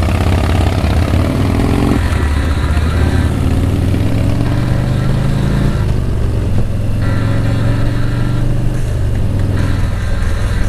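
Harley-Davidson Street Glide Special's V-twin engine accelerating away from a stop, rising in pitch with a drop at each upshift (about two and six seconds in), then running steadily at cruising speed.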